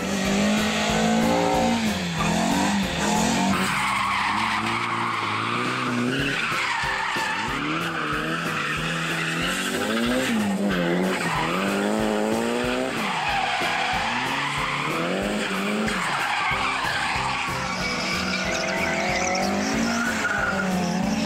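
Drift cars, among them a Nissan Silvia S14 and a Toyota AE86, sliding sideways: engines revving up and down again and again with long tyre squeals through each slide.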